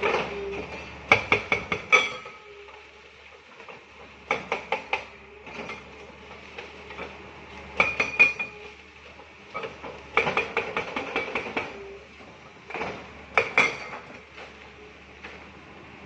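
Hand hammer blows in short bursts of four or five quick strikes, each with a metallic clink and ring, repeated about five times with pauses between: workers breaking up concrete during building demolition.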